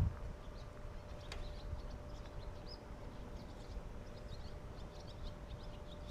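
Small birds chirping, many short high calls scattered throughout, over a faint steady hum and a low rumble.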